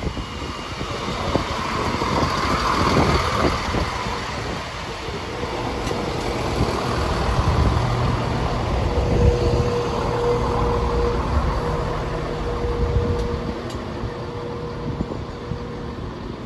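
CrossCountry Class 170 Turbostar diesel multiple unit running through the station, its underfloor diesel engines droning and its wheels clicking over the rail joints. A steady whine stands out about halfway through.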